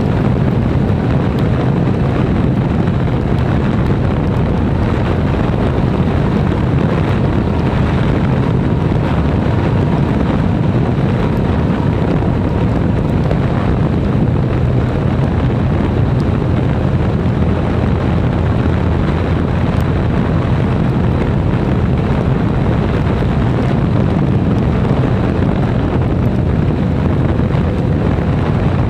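Steady wind rush on the microphone of a motorcycle-mounted camera at road speed, over the motorcycle's engine and its tyres on wet tarmac.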